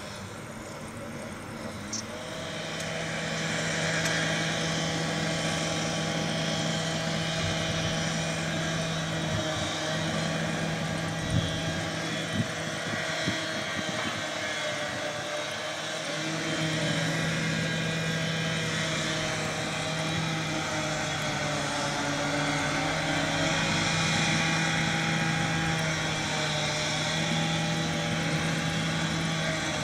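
Vossloh G1000 diesel-hydraulic locomotive's engine running with a steady drone, which falls away about halfway through and picks up again a couple of seconds later. A few short knocks come just before the dip.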